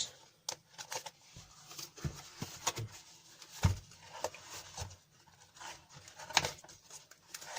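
Handling noise from a car alarm unit's casing being worked open by hand: scattered clicks, knocks and scraping, with sharper knocks about three and a half and six and a half seconds in. The casing is hard to open.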